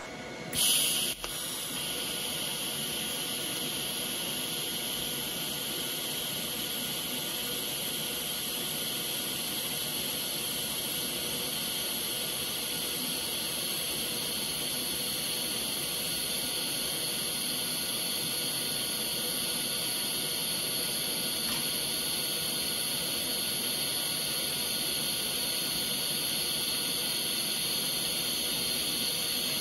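TIG welding arc on thin 16-gauge stainless steel sheet: the arc strikes about a second in, then burns with a steady hiss along the lap joint.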